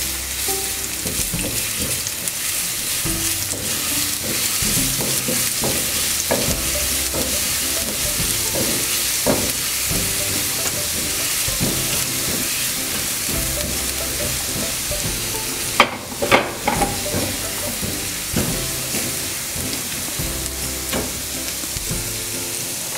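Chopped garlic sizzling steadily in hot oil in a nonstick frying pan, stirred with a silicone spatula. A few short knocks come through, the sharpest about sixteen seconds in.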